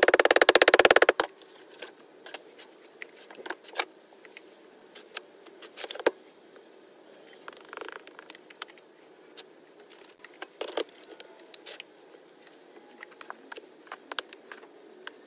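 Rubber mallet ramming oil-bonded Petrobond sand into a steel casting flask in a rapid run of dull blows that stops about a second in. After that come scattered light clicks and the soft rustle of sand being handled and scooped by hand.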